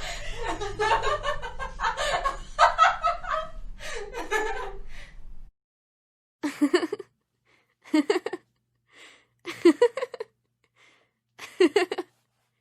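A woman laughing hard in a rapid run of breathy pulses, cut off abruptly about five and a half seconds in. After a moment of silence come four short separate chuckles, about one every one and a half to two seconds.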